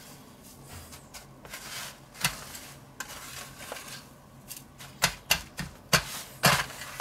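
A hand pressing and turning a bacon-wrapped cordon bleu in a stainless steel tray of panko breadcrumbs: soft crumbly scraping and rustling, then a quick run of sharp taps and knocks against the tray about five seconds in.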